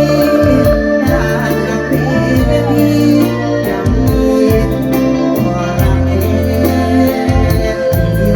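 Live mor lam band music: electronic keyboard in an organ-like sound over bass and a steady drum beat, with some singing.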